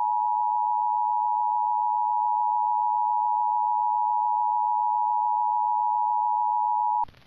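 Emergency Alert System attention tone: one steady high tone that cuts off abruptly about seven seconds in. It signals that an emergency alert message, here a National Weather Service warning, is about to follow.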